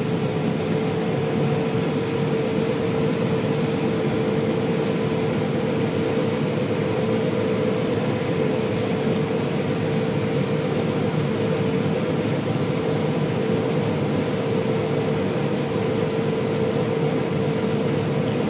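Combine harvester running steadily while harvesting soybeans: an even machine drone with a constant whine held at one pitch.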